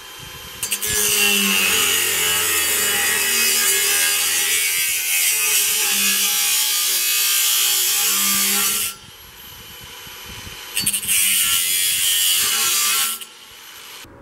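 Cordless angle grinder with a cut-off wheel cutting through steel angle: one long steady cut of about eight seconds, a short pause, then a second cut of a couple of seconds near the end.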